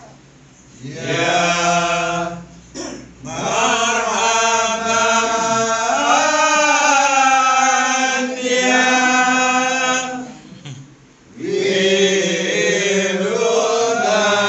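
A group of men chanting marhaban, Malay devotional praise of the Prophet, sung together in long drawn-out melodic phrases. The singing breaks off briefly at the start, around three seconds in and again around eleven seconds in.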